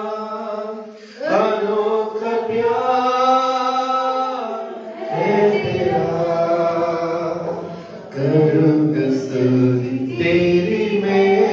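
A man singing a Hindi Christian worship song into a microphone, in long drawn-out phrases with short breaks for breath about a second, five seconds and eight seconds in.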